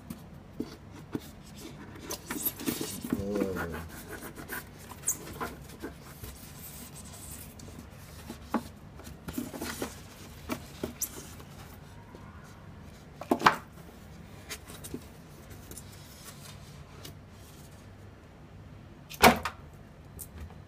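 Live crabs being handled with metal tongs: scattered clicks, scrapes and knocks of tongs and crab shells against a styrofoam box and a plastic container, with two louder knocks, one about two-thirds of the way through and one near the end.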